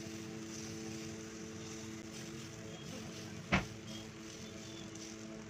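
Steady background hum with a light hiss while a steel ladle spreads batter on a nonstick tawa; the ladle knocks once against the pan about three and a half seconds in.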